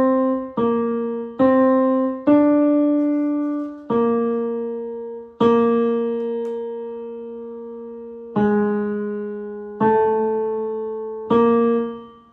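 Piano picking out a single-note melody, the tenor 2 line of a choral arrangement. It plays about ten notes one at a time, each struck and left to fade, with one note held for about three seconds in the middle.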